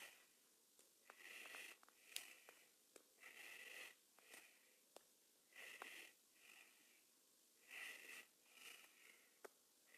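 Faint breathing close to a phone microphone, in and out about every two seconds, with a thin whistle in each breath and a few small clicks.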